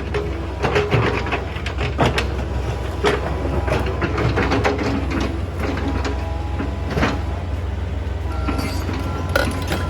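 Excavator engine running steadily under load, with repeated clatter and knocks of stones striking the bucket and each other as rocky soil is sorted into stones and earth.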